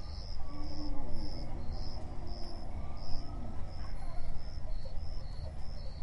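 Crickets chirping in short repeated pulses, about two a second, over a low steady rumble.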